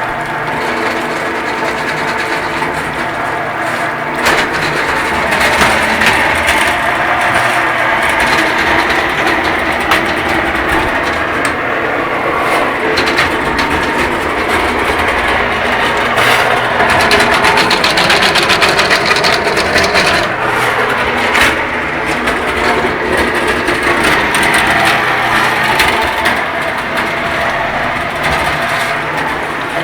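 Motorized drain-cleaning machine running steadily with a dense, rapid mechanical clatter.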